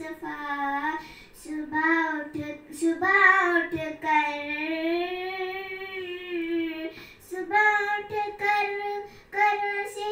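A young girl singing a song solo into a handheld microphone, holding one long, slightly wavering note from about four seconds in to about seven.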